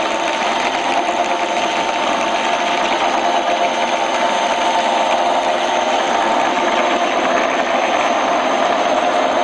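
TV-6 lathe running, its change-gear train and belt drive spinning: a steady mechanical whir with a gear whine.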